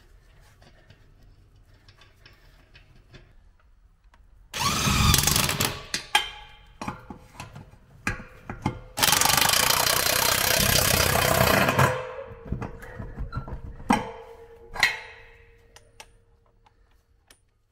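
Cordless impact wrench running fine-threaded wheel nuts onto a Sherp's wheel hub: a burst of about a second and a half, then a longer run of about three seconds, with clinks and clicks of nuts and socket between.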